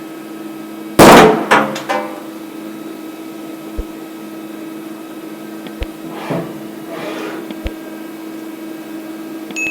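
CNC milling machine running with a steady hum. About a second in there is one loud sharp bang, followed by two smaller knocks; later come two short hissing rushes and a few faint thumps.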